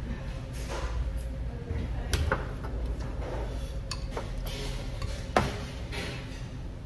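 Metal spoons clinking against bowls and a pot during a meal: a few short, sharp clinks, the loudest about five and a half seconds in, over a steady low room hum.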